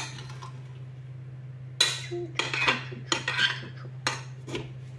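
Ceramic serving bowl and its metal spoon clattering against the rim of a stainless-steel couscous steamer pot as steamed couscous is tipped into it by hand. A run of clatters begins about two seconds in, over a steady low hum.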